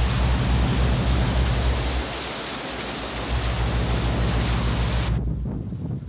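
Steady rushing wind noise over a low rumble. The high hiss cuts off suddenly about five seconds in, leaving the rumble.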